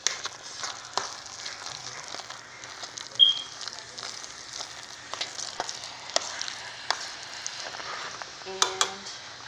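Mashed potatoes being stirred in a hot pot: a steady sizzle with scattered clicks and scrapes of the utensil against the pot. A brief high squeak about three seconds in.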